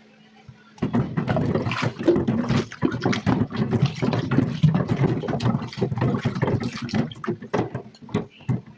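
Water from the kitchen tap running and splashing over hands and dishes in a stainless-steel sink as they are rinsed, starting suddenly about a second in and stopping near the end.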